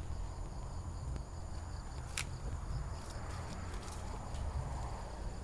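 Insects chirping steadily in the high register over a low, uneven rumble, with one sharp click about two seconds in.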